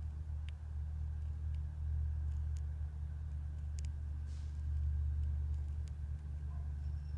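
A steady low rumble, with a few faint clicks scattered through it.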